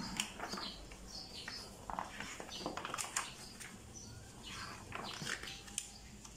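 Small birds chirping in the background, short high chirps every second or so, with a few soft rustles of paper as the manual's pages are handled.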